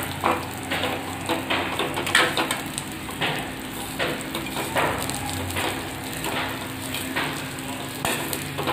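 Vermicelli roasting in ghee in a stainless steel wok, stirred with a steel ladle: sizzling, with frequent irregular scrapes and clinks of the ladle against the pan.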